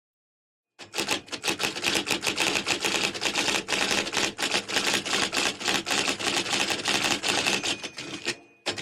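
Rapid mechanical clicking, many clicks a second in a dense, uneven stream, sound-effect style. It starts about a second in, runs for some seven seconds and cuts off near the end, followed by a brief separate burst.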